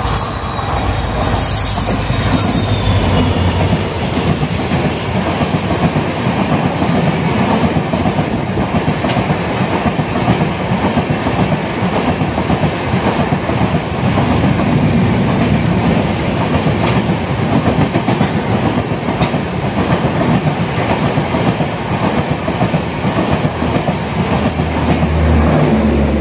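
Express passenger train of red coaches passing at speed close by. The locomotive's low hum goes by in the first few seconds, then coach after coach rolls past with a loud, steady rush of wheels on rails.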